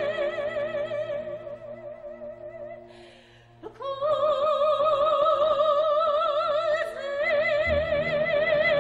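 Operatic soprano singing long held notes with a wide vibrato over a soft sustained accompaniment. The voice fades out about three seconds in. A new note enters with an upward slide near four seconds, and the line steps up again about seven seconds in.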